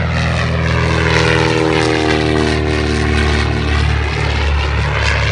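Piston-engined propeller trainer aircraft flying low overhead in formation. The engine drone drops in pitch as a plane passes about three to four seconds in.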